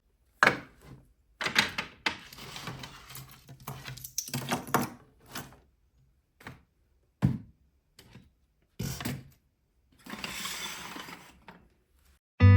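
Scattered knocks and thuds of household objects being picked up, moved and set down during cleaning, with stretches of rustling or scraping between them.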